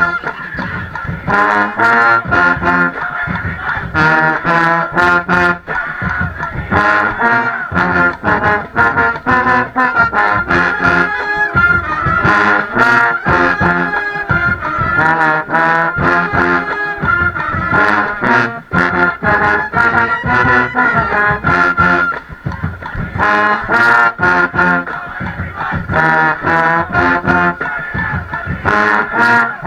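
Pep band playing a stand tune: full brass with trombones and trumpets over drums striking a steady beat, heard through a GoPro's waterproof case.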